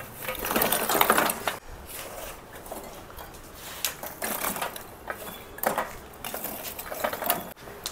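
Lumps of charcoal clinking and knocking together as they are piled by hand into a metal barbecue box, a string of irregular clicks.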